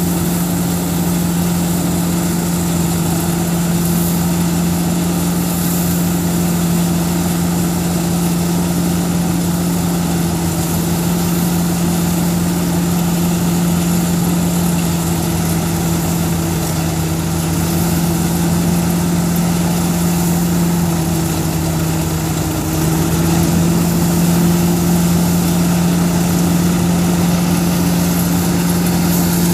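Tractor-driven Gautam groundnut thresher running steadily while groundnut vines are fed in, a loud continuous drone of the tractor engine and the thresher's drum. About two-thirds of the way through the pitch sags briefly, then it comes back slightly louder.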